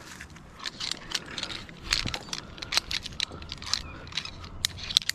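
Climbing gear, rope and bark being handled up a tree: irregular sharp clicks and crackles, coming thicker from about two seconds in.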